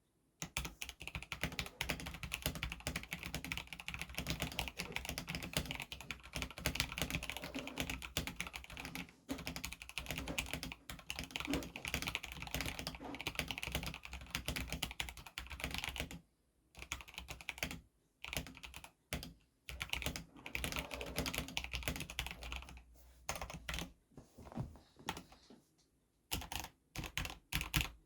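Epomaker EP84 mechanical keyboard with Gateron Yellow linear switches being typed on, fast and continuous at first, then after a short pause about halfway through in shorter bursts with gaps between them.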